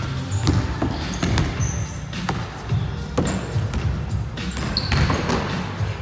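Basketball bouncing on a wooden gym floor in a string of irregular thumps that echo in the hall, with short sneaker squeaks between them.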